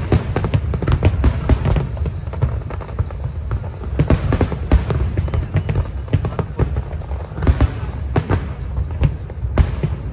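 Aerial fireworks going off in a dense barrage: many sharp bangs and crackles, one after another, over a continuous low rumble.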